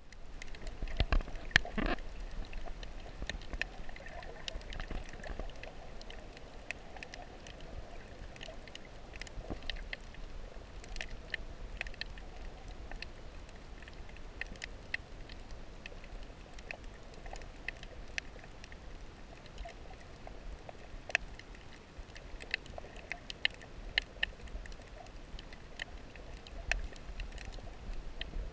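Underwater sound picked up by an action camera in its waterproof housing while snorkelling over a reef: a muffled low rumble of moving water with many scattered sharp clicks and crackles, and a few louder knocks about one to two seconds in.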